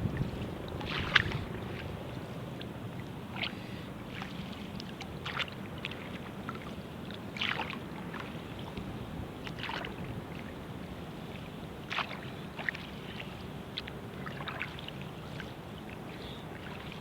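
Water lapping with a steady low rush and scattered small, sharp splashes and drips, the strongest about a second in.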